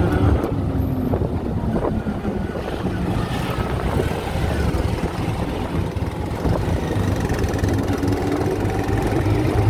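Auto-rickshaw (bajaj) engine running as the three-wheeler drives along the road, heard from inside the open cab. The engine hum is steady and rises and falls slightly in pitch, with road noise underneath.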